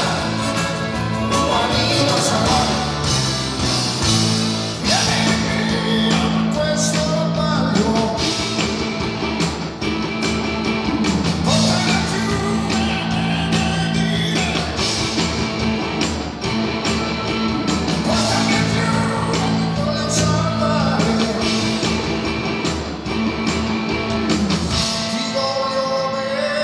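Live rock band playing, with a male lead vocal over electric guitars, bass and drums. Near the end the bass and drums drop out, leaving held chords.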